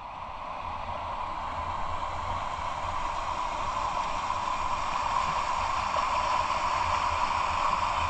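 Fast river water rushing over rocks in rapids: a steady rushing noise that grows gradually louder.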